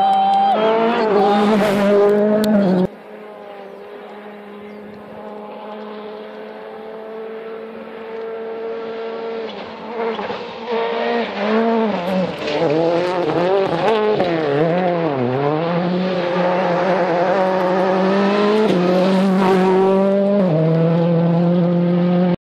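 Rally car engines running hard on a gravel stage. For about the first three seconds a car comes straight on, close and loud. After a sudden cut, another rally car is heard farther off, its engine note rising and falling through gear changes and lifts, growing louder as it nears in the last few seconds.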